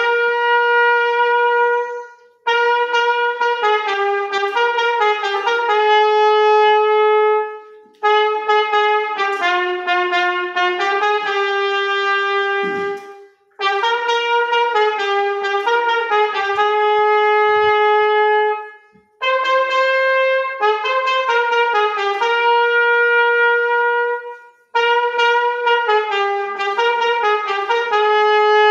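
Brass band of trumpets, a euphonium, saxophones and a sousaphone playing a slow tune in long held chords. It goes in phrases of about five seconds, each followed by a brief breath-length pause.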